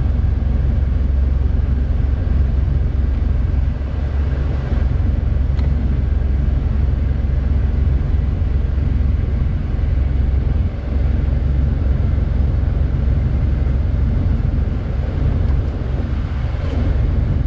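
Jeep Wrangler TJ engine idling with the HVAC blower running, a steady deep rumble with an even rush of air over it, heard from inside the cab while the vent settings are switched.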